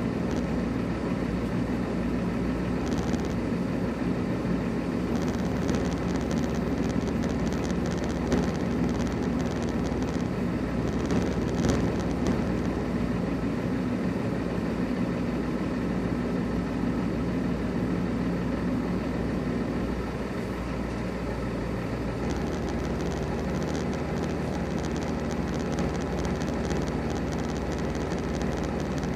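Heavy diesel semi-truck engine idling steadily, its low hum easing slightly about twenty seconds in.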